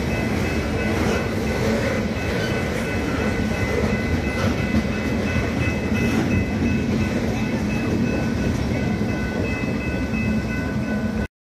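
Freight train of tank cars and boxcars rolling past: a steady rumble of wheels on rail with faint clacks and a steady high-pitched squeal over it. The sound cuts off suddenly near the end.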